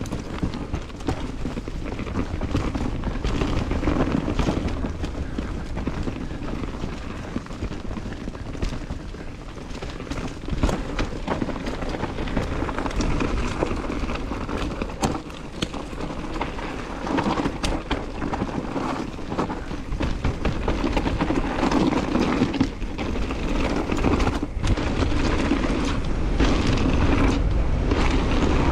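Mountain bike riding a dirt trail: a steady rumble of tyres and wind buffeting the camera microphone, with many scattered clicks and rattles from the bike over rough ground.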